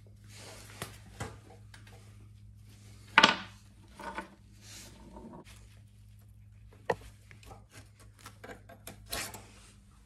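Hand work on a motorcycle's rear brake caliper: metal clicks, light knocks and scraping as the pins and worn pads are worked loose, with a louder scrape about three seconds in and a sharp click near seven seconds. A steady low hum runs underneath.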